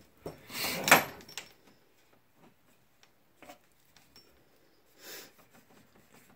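Handling noises from work on the washer's hose fittings: a brief rustling scrape ending in a sharp clack about a second in, then a faint click and a short rustle.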